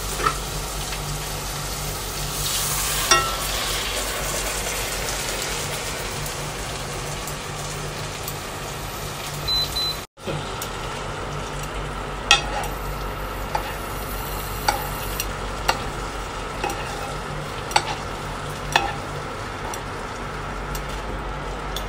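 Ribeye steak sizzling in hot oil and butter in a frying pan, a steady frying hiss. After a brief cut about halfway, a metal spoon clinks against the pan every second or two as the butter is basted over the steak.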